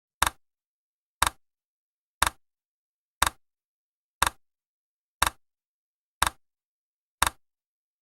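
Clock-tick sound effect of a countdown timer: a sharp double click once every second, eight times, with dead silence between the ticks.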